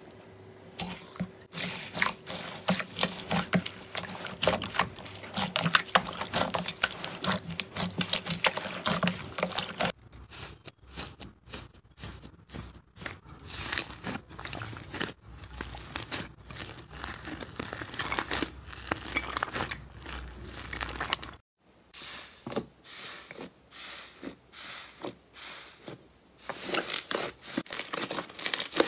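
Slime being squeezed, poked and stretched by hand, giving dense crackling and clicking. The crackling thins out and quiets about ten seconds in, then turns dense again for the last several seconds.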